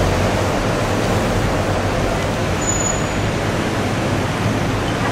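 Steady city street traffic noise, an even rushing hiss over a low rumble, with a brief thin high whistle about two and a half seconds in.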